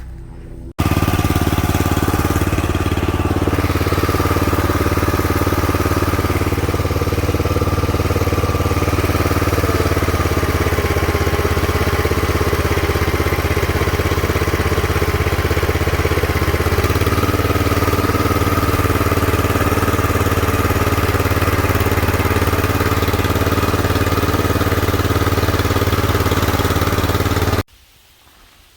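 MTD 5 hp chipper shredder's small engine running steadily at speed. Its pitch sags a little for several seconds in the middle and comes back up about 17 seconds in, as the engine bogs under a load of branches and the RPMs recover. It starts abruptly about a second in and cuts off abruptly near the end.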